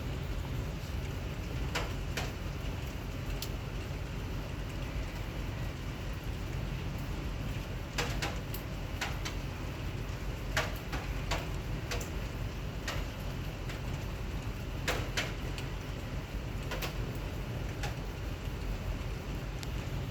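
Heavy rain falling as a steady rush, with scattered sharp taps of drops striking a hard surface.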